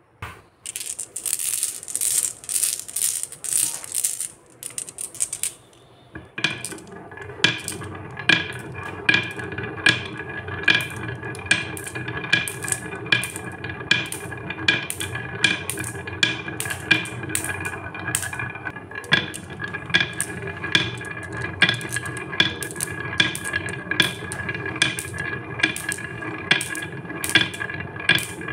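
Glass marbles clatter at first. From about six seconds in they roll down the serpentine groove of a wooden marble slope, with a steady rolling rumble, a ringing wooden resonance and regular clacks a little more than once a second as they swing through the bends.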